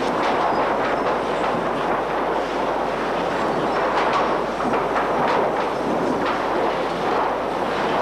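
Sawmill lumber unscrambler and chain conveyors running: a steady industrial clatter of sawn boards knocking against each other and the steel bins and chains, with frequent irregular knocks.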